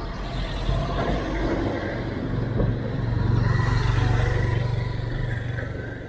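A heavy motor vehicle passing close by, its low engine hum building to its loudest past the middle and fading toward the end, over street noise.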